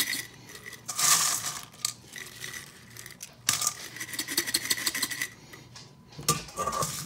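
Dry banana chips rattling and clattering against glass and stainless steel as a glass jar is scooped through them in a steel bowl, in short bursts.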